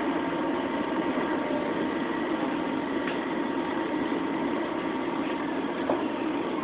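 Steady running noise inside an LIRR electric commuter train car as it rolls along a station platform, with a couple of light clicks.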